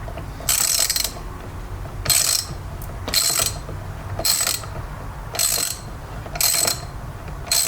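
A hand ratchet wrench clicking in short runs, about one stroke a second, as a fastener is backed out on the car's steering column.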